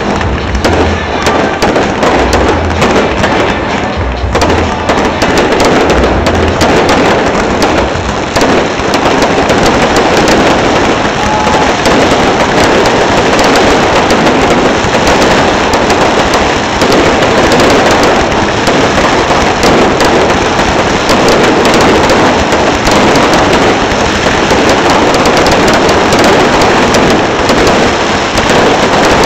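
Aerial fireworks going off in a dense, continuous barrage: many overlapping bangs and crackles with no quiet gaps, loud throughout.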